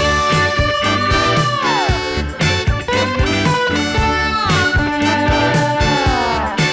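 Background music: an upbeat swing-style tune with held, sliding melody notes over a steady beat.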